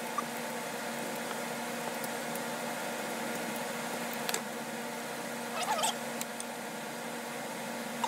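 Pieces of paper being handled over a steady background hum: a light tap about four seconds in and a short rustle near six seconds.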